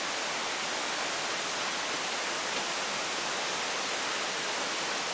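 La Fortuna waterfall's falling water making a steady, even rushing noise.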